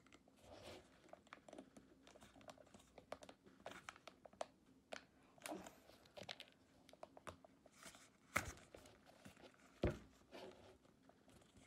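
Plastic snap-on lid of a bubble tea cup crackling and clicking as hands twist and pry at it, the lid fitted too tight to come off easily. Quiet, irregular crinkling with a few sharper clicks in the second half.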